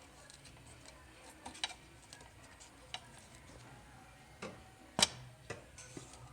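Scattered light clicks and knocks as webbing and a buckle are handled and set against the stops of a bar-tacking sewing machine, with the sharpest click about five seconds in, over a faint steady hum.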